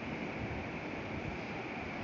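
Steady hiss of butter chicken cooking in a steel pan on a gas stove, with a few soft low thumps as a ladle stirs in a little water.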